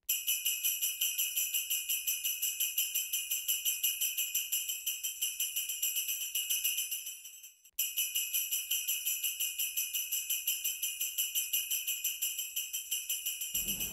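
Jingling bells shaken in a quick, even rhythm, high and bright, cutting out briefly about halfway and then resuming. An orchestra comes in right at the end.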